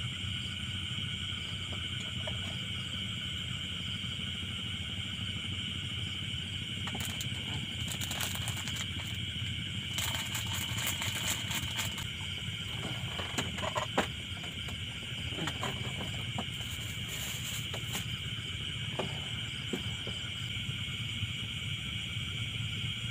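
Steady chorus of night insects such as crickets, a continuous high-pitched trilling, over a low steady rumble. Scattered clicks and rustles of handling come through, most around a third of the way in and again later.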